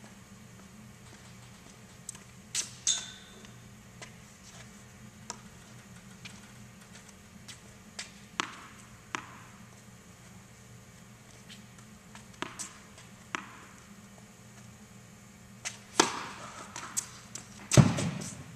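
Tennis ball bounced on a hard court and struck by a racket on serves, sharp impacts spaced a few seconds apart, each echoing in a large indoor hall; the two loudest hits come near the end. A faint steady low hum runs underneath.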